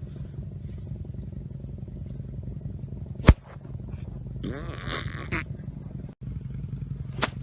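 A golf club striking a plastic practice golf ball: one sharp, loud crack about three seconds in, then another shorter click near the end. A steady low hum runs underneath.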